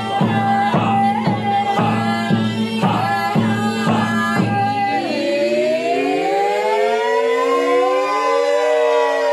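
Cast singing over a drum struck about twice a second, with a low steady drone underneath. About five seconds in the drum stops, and the voices slide slowly up and then back down together in a wailing chord.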